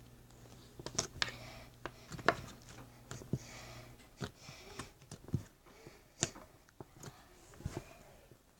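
Slime being squeezed and poked by hand, giving irregular small sticky clicks and squishy pops. A faint low hum stops about halfway through.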